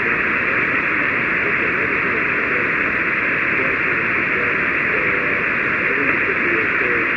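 Amateur radio receiver tuned to 40-metre single-sideband (7.189 MHz), giving a steady hiss of band noise with a faint voice barely showing through it. This is a weak 10-watt QRP station that has faded to about half a dB above the noise level.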